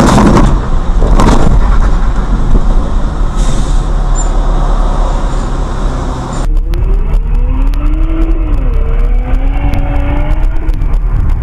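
Car engine and tyre noise on a wet road, heard from inside the car, with two loud noisy whooshes in the first second and a half. About six seconds in the sound changes to a car accelerating: its engine note climbs, drops at a gear change about two seconds later, then climbs again.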